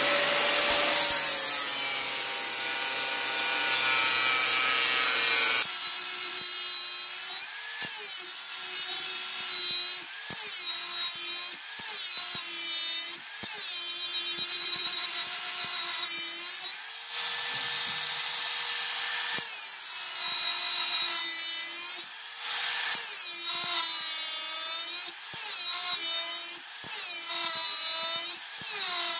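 Angle grinder with an abrasive disc grinding the profile into a steel dagger blade. It runs steadily for the first few seconds. From about six seconds in it makes repeated passes along the blade, and the motor's pitch dips under load and recovers about once a second.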